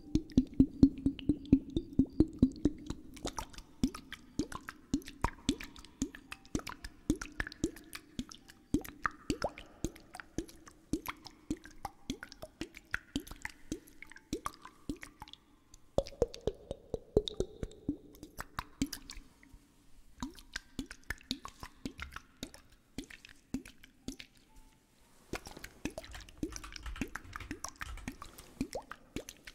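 A storm glass, a sealed glass bottle of liquid, tapped over and over, making quick plopping, drip-like taps several times a second, thickest at the start and again near the end.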